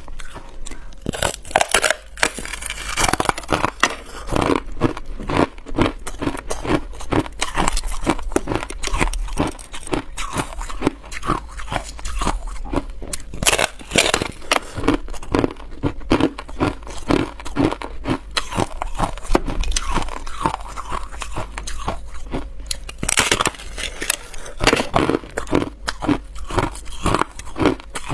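A person biting and chewing a thin slab of frost-covered hard ice: a dense run of sharp crunches and cracks, coming in louder clusters with quieter chewing crackle between.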